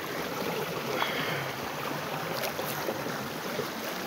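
Steady rush of flowing water in a river current, with some wind noise on the microphone.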